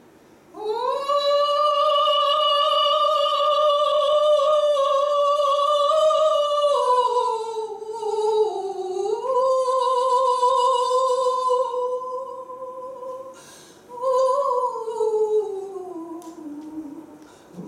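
A woman singing solo and unaccompanied in long held high notes. The pitch dips and climbs back about eight seconds in, then after a short break near the end it glides slowly downward.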